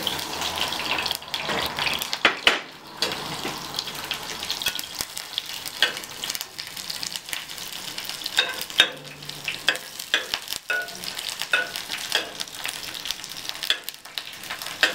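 Onion slices sizzling in hot olive oil in a preheated ceramic dish, with the clicks and scrapes of a metal spatula stirring them against the dish.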